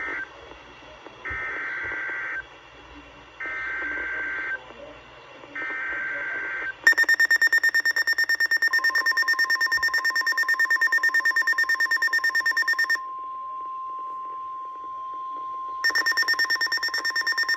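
NOAA Weather Radio emergency alert tones. First come three warbling SAME data bursts of about a second each. Then a weather radio receiver sounds a loud, rapid alarm beeping, and a steady lower warning tone starts under it. That tone holds alone when the beeping stops for a few seconds, and the beeping comes back near the end. The tones signal that a new warning, a severe thunderstorm warning, is about to be read.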